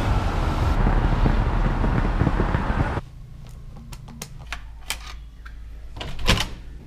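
City street traffic noise that cuts off after about three seconds to quiet indoor room tone with a few sharp clicks, such as elevator buttons being pressed. Near the end comes a louder clunk from a hotel room door's key-card lock and lever handle.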